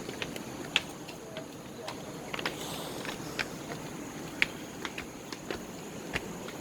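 Footsteps on a stairway: irregular sharp taps, a step or so a second, over a steady background hiss.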